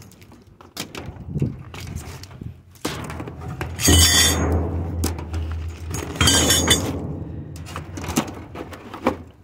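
Metal scrap clinking and rattling as flexible armored cable and conduit are handled in a steel dumpster, with many small knocks and two louder clattering bursts about four and six and a half seconds in.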